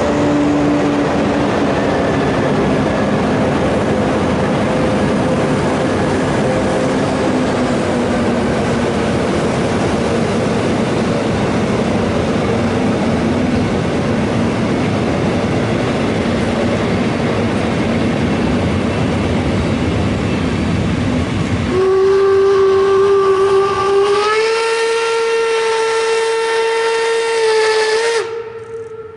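A steam-hauled train's coaches rolling past with a steady rail noise. About 22 seconds in, the steam locomotive gives one long whistle blast that steps up in pitch about two seconds later and cuts off shortly before the end.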